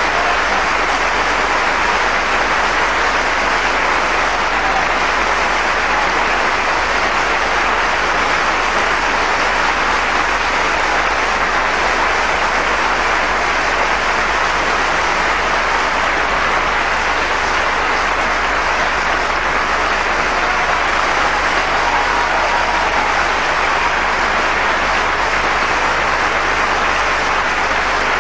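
Large audience applauding, a dense and steady clapping that holds without letup.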